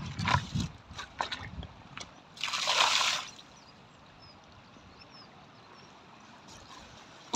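A few knocks of stones underfoot on a rocky shore, then a splash of rock-pool water lasting about a second, followed by faint steady background noise.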